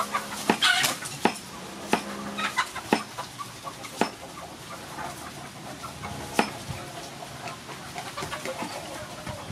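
Knife blade striking a wooden chopping board in irregular strokes while slicing an onion, most of them in the first four seconds. Chickens cluck in the background.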